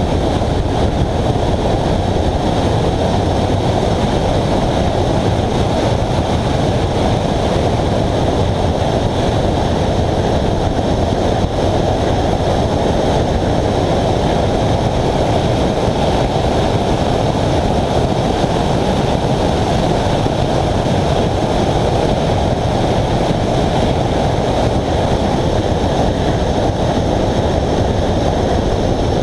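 Wind noise on a GoPro's microphone mounted on a moving Subaru: a loud, steady, low rushing that does not let up.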